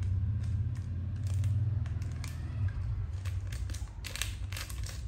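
Small clicks and rustles of a Zippo lighter being handled, with a cluster of sharp clicks about four seconds in, over a steady low hum.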